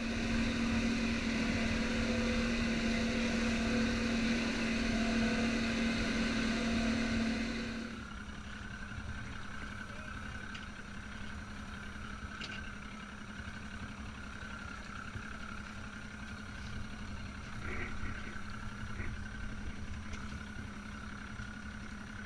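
Evinrude 200 outboard motor running steadily at speed for about eight seconds, then continuing much quieter at low throttle.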